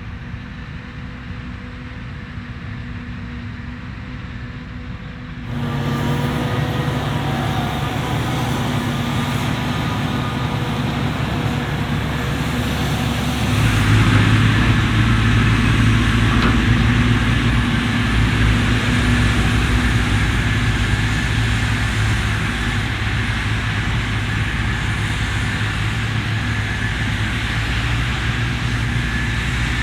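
Forage harvester and tractor engines running steadily during maize chopping. The sound gets louder suddenly about five seconds in and again about thirteen seconds in, then stays steady.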